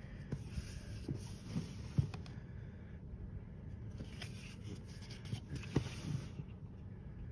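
Paper pages of a coloring book being turned and handled: two stretches of soft rustling and sliding, with a few light taps and clicks in between.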